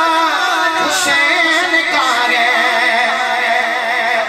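A man singing Urdu devotional verse (a manqabat) into a microphone, drawing out long, wavering, ornamented notes. There is a short knock about a second in.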